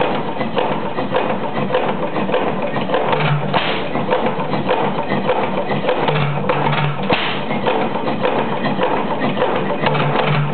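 1911 La Crosse Sta-Rite 12 hp hit-and-miss gas engine running, its works clattering with rapid knocks and a heavier beat about every three and a half seconds. The engine is freshly restored, only on its second run and still needing adjustment.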